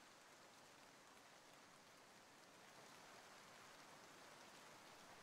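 Faint, steady rain falling: an even hiss with no distinct drops, getting a little louder about halfway through.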